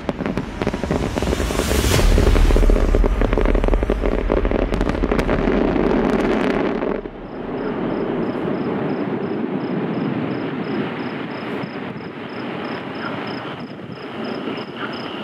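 Aerial fireworks finale: dense crackling with heavy low booms, cutting off about seven seconds in. After that there is a steady background hum and a high insect chirp pulsing about four times a second.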